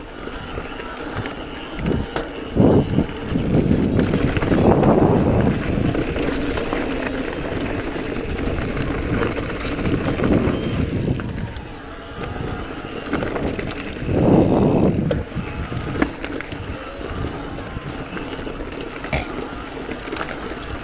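Giant Trance E+ Pro 2 electric mountain bike rolling along a dirt singletrack: knobby tyres on the tacky trail, with the bike clicking and rattling over bumps. A low rushing noise on the microphone swells loudly several times.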